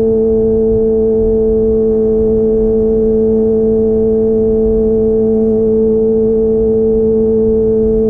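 Kawasaki ZX-25R's 250 cc inline-four running at a steady high rpm through an aftermarket DX Generation Pro Race exhaust with its dB killer removed, holding one even note. Wind rumble on the microphone underneath.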